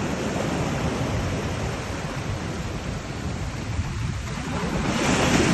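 Sea surf washing over rocks, with wind rumbling on the microphone; a wave surges in louder near the end.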